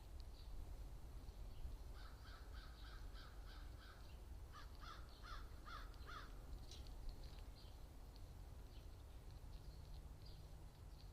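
Faint bird calls: a run of about seven short, evenly spaced calls about two seconds in, then about five more slightly arched calls a second later, over a steady low outdoor rumble.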